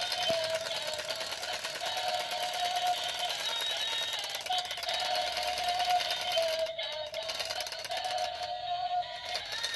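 Yellow battery-powered toy chainsaw running its electronic engine sound: a continuous buzzing drone whose pitch wavers up and down, with the plastic chain whirring.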